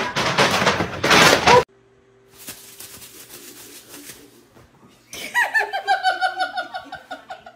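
A person laughing in a quick run of high-pitched pulses, slowly falling in pitch, starting about five seconds in. Before it, a loud burst of noise that cuts off abruptly after about a second and a half, then a faint hum.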